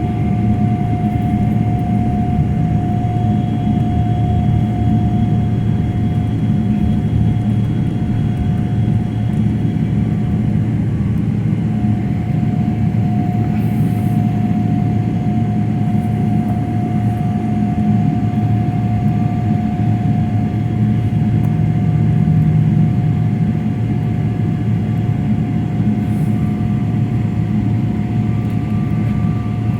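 Steady airliner cabin noise before takeoff: a low rumble with a thin steady whine above it.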